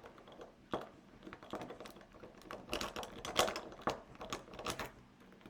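Metal lock pick working inside a pin-tumbler padlock: light metallic clicks and scrapes, a few scattered at first, then a quick dense run in the middle.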